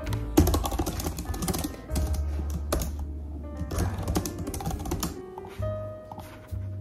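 Background music with held bass notes, mixed with a run of rapid, irregular clicks and taps.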